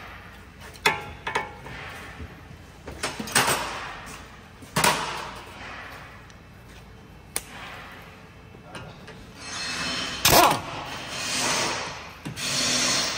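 Metal tools clinking and knocking on the front brake hub assembly, a few separate knocks. Near the end, short bursts of an impact wrench running on a bolt.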